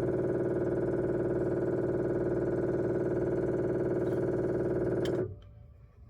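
Onan QD 8000 generator's electric fuel pump running on the prime switch: a steady, buzzing hum that cuts off suddenly about five seconds in as the prime is released.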